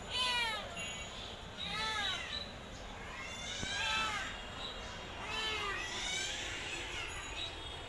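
Domestic cat meowing four times, each meow rising and then falling in pitch, roughly a second and a half apart.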